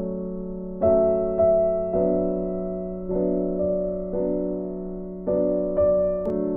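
Background piano or electric-piano music: slow sustained chords, a new chord struck about every half second to a second.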